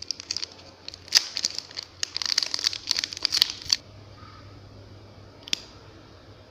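Plastic wrapper of a Superstar chocolate wafer bar being torn and peeled open: a dense run of crinkling and crackling for nearly four seconds. Near the end, a single short crack as the wafer bar is snapped in two.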